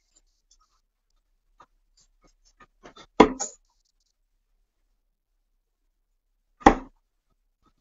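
Two short, sharp knocks about three and a half seconds apart, the first with a brief clatter after it.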